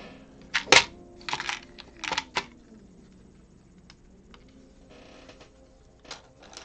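Plastic building bricks clicking and clattering as pieces are handled and snapped together. A cluster of sharp clicks comes in the first two and a half seconds, the loudest under a second in, then a few fainter clicks near the end.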